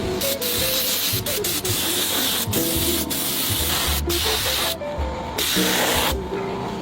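A steady hiss in two long stretches, each starting and stopping sharply, with a short break about five seconds in, over background music.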